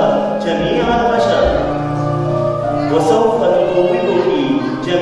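Music with singing voices, holding long notes.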